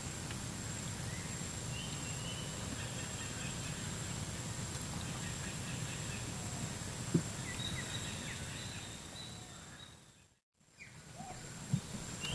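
Quiet outdoor ambience on open water: a steady low noise with a thin, steady high-pitched whine and a few faint bird chirps. A single click sounds a little past halfway, and the sound cuts out for a moment near the end.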